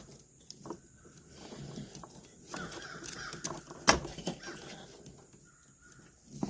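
Scattered small clicks and knocks from wiring and connectors being handled, the loudest about four seconds in. A bird calls in the background, twice.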